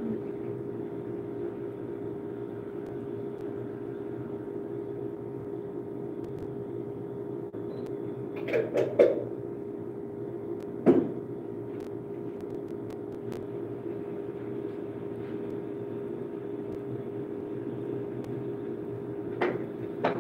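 A steady hum with a faint hiss, broken by a few knocks and clicks; the loudest come a little before the middle.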